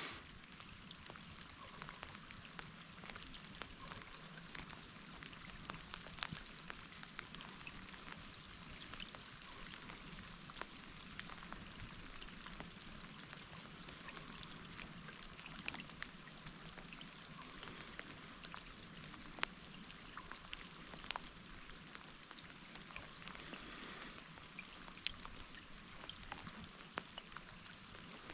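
Rain falling on forest leaves: a steady soft hiss with many scattered drops ticking at irregular moments.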